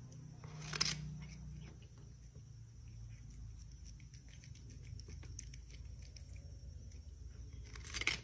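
A cat biting and chewing raw cucumber: faint scattered crunching clicks over a low hum, with two louder brief noises, one about a second in and one near the end.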